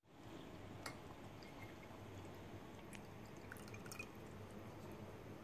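Water poured from a plastic cup into the bottom boiler chamber of a Bialetti Mukka Express moka pot: faint trickling and dripping, with a few light clicks, over a low steady hum.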